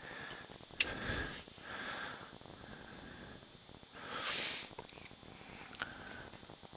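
A person sniffing or breathing out in a short breathy hiss about four seconds in, with a sharp click about a second in and a few faint clicks later.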